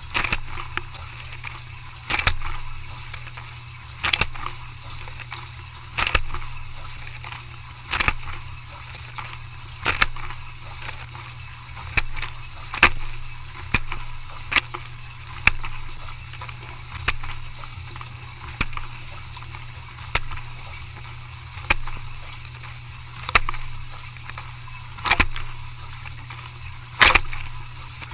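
Dishwasher running a wash cycle: a steady low hum with a sharp splash of water about every two seconds.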